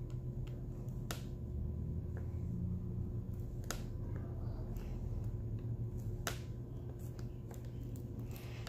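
Sharp clicks, a few seconds apart, of a diamond-painting drill pen tapping resin drills in a plastic tray and pressing them onto the canvas, over a steady low hum.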